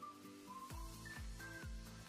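Quiet background music: a steady beat of about two drum strikes a second under held notes and a light melody of short high notes.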